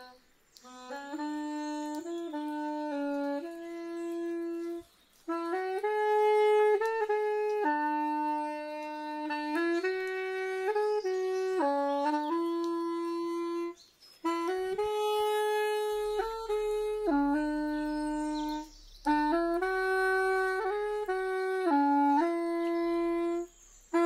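A slow melody played on a wooden wind pipe, one note at a time, in phrases broken by short pauses for breath.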